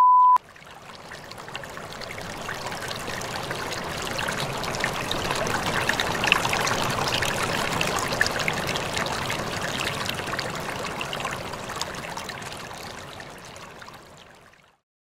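A steady test-tone beep cuts off just after the start. Then a rushing, crackly noise swells in slowly, is loudest in the middle and fades away before the end.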